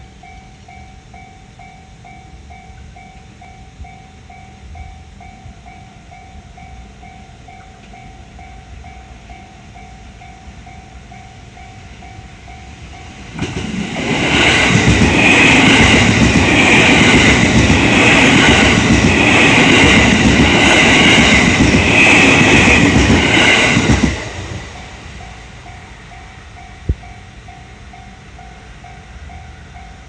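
Japanese railroad crossing warning bell dinging in a steady, evenly repeated 'kan-kan'. About halfway through, a JR electric commuter train passes for about ten seconds, and its wheels rattling over the rails drown out the bell. The bell is heard again once the train has gone.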